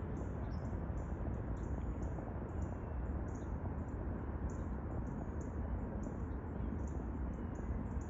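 Steady low rumble of wind buffeting the microphone, with short high chirps repeating about three times a second.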